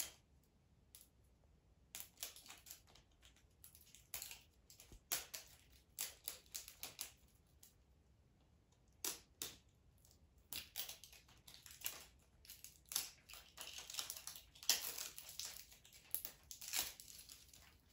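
Small plastic toy egg being handled and worked open, with clusters of soft plastic clicks, taps and crinkling rustles, quiet for a moment near the middle.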